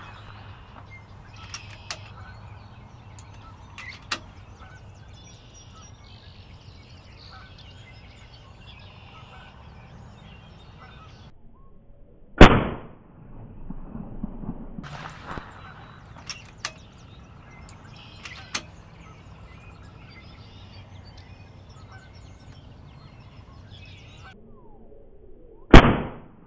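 Two shots from a PCP air rifle, about thirteen seconds apart, each a single sharp report that dies away quickly, with a few faint clicks in the quiet between them.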